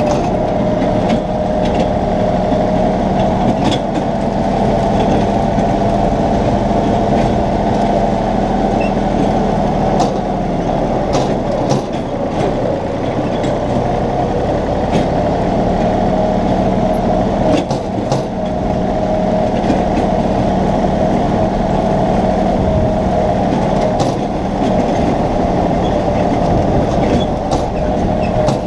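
Compact tractor's engine running steadily under load while mowing, with a steady whine over the engine noise and scattered sharp ticks.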